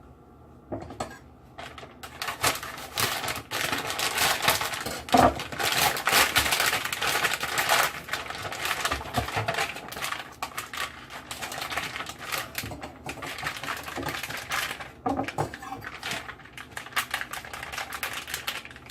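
Plastic packaging crinkling and rustling with many quick clicks and crackles as a pack of frozen calamari is opened and handled.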